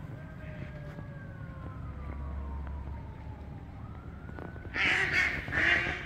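A long siren-like wail falls slowly in pitch over a few seconds, then rises again. Near the end come loud, harsh alarm calls from ducks.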